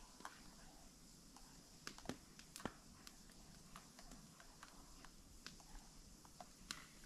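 Faint, irregular crackles and snaps from a smoky wood campfire, with a few louder pops about two seconds in.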